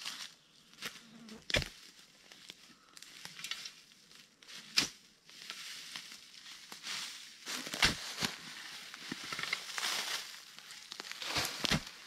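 Digging into soft sandy soil: about four sharp strikes of a digging tool cutting in, with crunching and scraping of sand between them. Insects buzz around.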